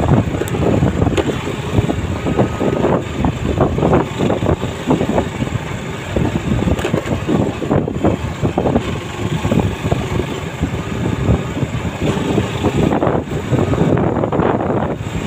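Vehicle running along a rough dirt road, with wind buffeting the microphone and uneven jolts and rattles from the ride.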